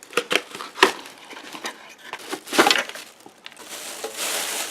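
Clear plastic bird seed feeder being handled: a run of sharp clicks and knocks, then a steady rustle near the end.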